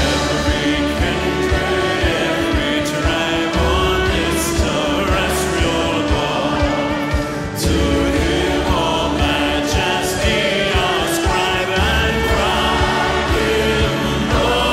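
A male soloist singing a hymn over orchestral accompaniment with violin.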